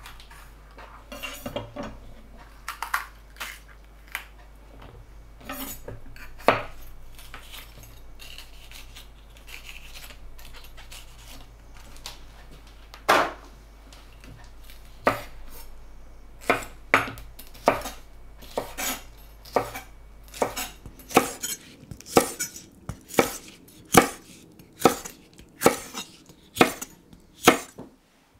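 Chef's knife cutting vegetables on a wooden cutting board: scattered cuts and knocks at first, then a steady run of sharp knocks of the blade on the board, a little over one a second, through the second half.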